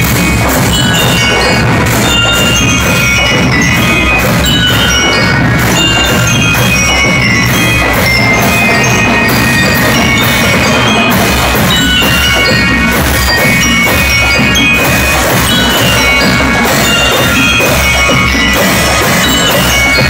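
Marching band playing: bell lyres ring out a melody of short metallic notes over steady drumming.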